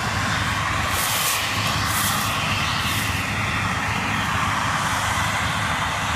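Combine harvester harvesting dry corn: a steady mechanical drone of engine and threshing with a low hum underneath.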